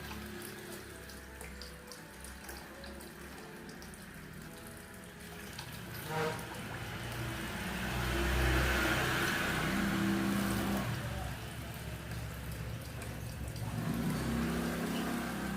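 Water splashing and dripping as a pet bird bathes, with one sharp knock about six seconds in.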